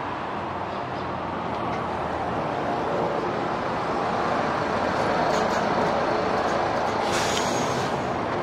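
City bus pulling in to the kerb and stopping, its engine and tyre noise growing a little louder. A short sharp hiss of air about seven seconds in, from the air brakes or the pneumatic doors as the bus halts and opens.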